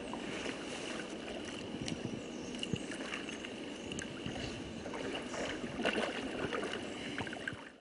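Single-blade paddle strokes in a slalom canoe on flat water: the blade splashing and gurgling in the water with each stroke, over a thin steady high-pitched tone. The sound cuts off abruptly near the end.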